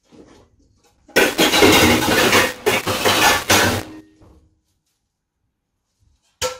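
Metal pots and pans clattering loudly for about three seconds as cookware is rummaged through, then one sharp clank near the end.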